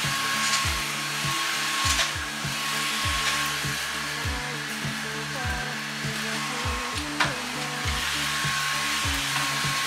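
Stick vacuum cleaner running steadily, its motor a steady whine over the hiss of suction. Background music with a deep bass beat plays along with it.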